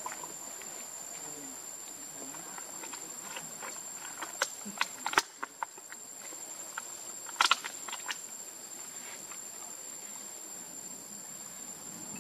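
Insects keep up one steady, high-pitched note throughout. Two clusters of sharp clicks come through the middle: a quick run about four to five and a half seconds in, and a louder group around seven and a half seconds.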